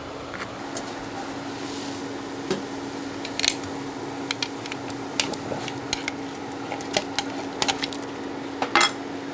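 Kitchen utensils clinking and knocking against dishes and pots in irregular, scattered strikes, with the loudest clinks near the end, over a steady low hum.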